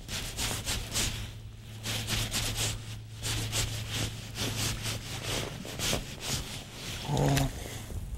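Fishing reel being cranked quickly, a run of irregular clicks, as a hooked bass is wound up on a metal jig from deep water. Under it a low steady hum stops about six seconds in, and a brief voice sound comes near the end.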